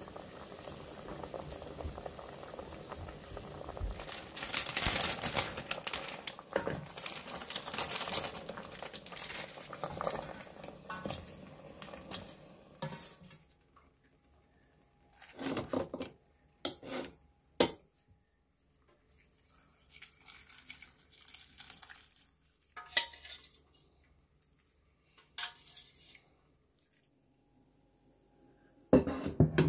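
A pot of ramen broth with a cut-up stone crab boiling, a continuous bubbling for about the first half. After that it goes quiet apart from a few short, separate clinks of cookware, one more near the end.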